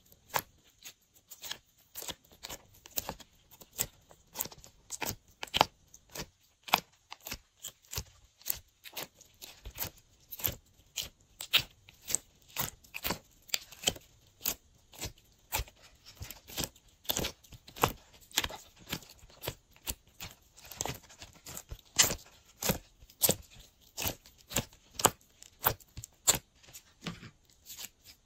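Glossy slime being worked by hand, giving a run of sharp, sticky pops and clicks, several a second and uneven in loudness.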